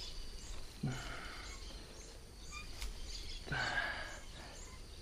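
Two short sighing breaths from a man, about a second in and again past three seconds, over quiet rural ambience with faint scattered bird chirps.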